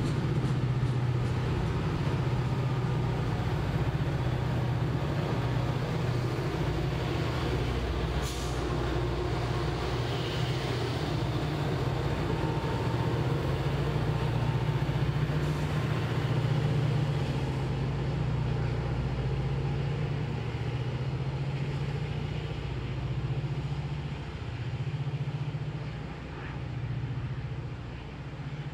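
Norfolk Southern diesel freight locomotives working under power as they pass, a steady low engine drone. About 8 seconds in there is one sharp click, and the drone grows quieter and wavers near the end as the units pull away.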